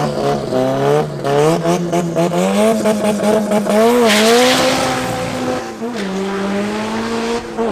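Turbocharged VW Golf Mk1 drag car with an ABF four-cylinder, its engine revving at the start line, then launching about four seconds in with a burst of tyre noise. It accelerates hard away, the engine note dropping twice as it shifts up.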